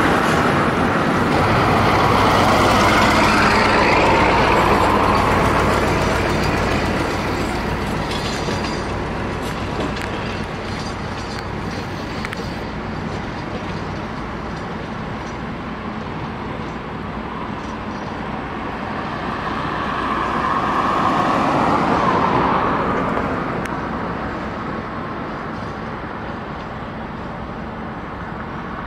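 Tatra T3 tram running past on its rails and moving away, its running noise loud at first and fading out. A second swell of noise comes about twenty seconds in.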